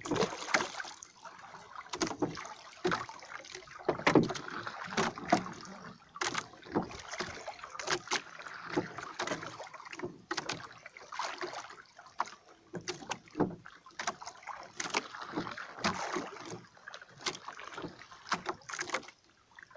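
Small wooden outrigger boat being paddled by hand: the paddle splashes in the water, with frequent irregular sharp knocks of wood against the boat.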